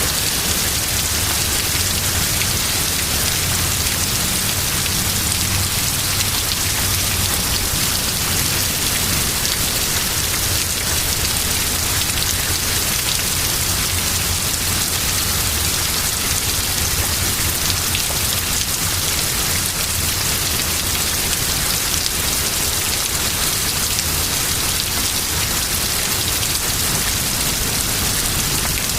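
Heavy rain pouring down steadily in a thunderstorm downpour, a dense, unbroken hiss of drops.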